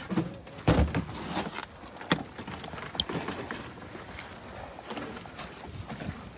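Outdoor background of people moving about, with a loud thump a little under a second in, a sharp click about two seconds in and a brief high chirp about three seconds in.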